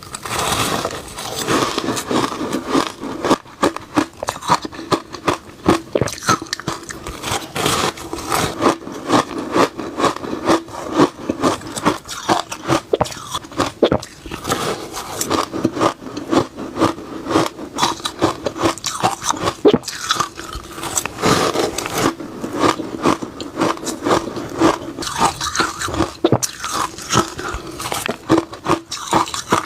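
Close-up crunching of reshaved refrigerator ice being bitten and chewed, a dense run of crisp crackling crunches without a break.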